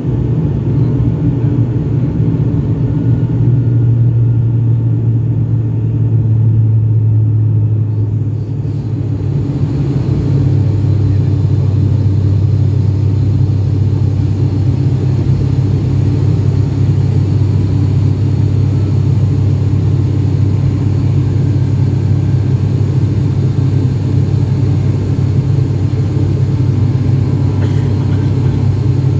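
Turboprop airliner's engine and propeller droning steadily, heard from inside the cabin. About a third of the way in, the drone drops slightly in pitch and settles lower.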